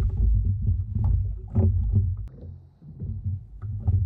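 Low rumbling with uneven surges and scattered short knocks: handling noise on a fishing kayak.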